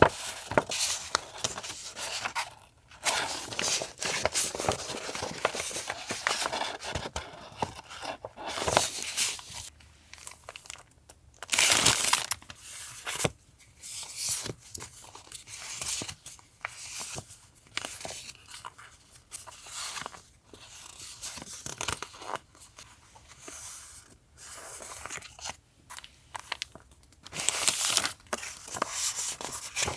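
Paper being handled at close range: crinkling, rustling and tearing, with small taps and clicks in between, and one louder rustle lasting about a second near the middle.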